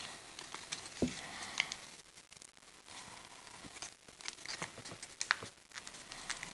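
Origami paper rustling and crinkling under the fingers as it is folded and creased, in scattered small crackles and clicks, with a light knock about a second in.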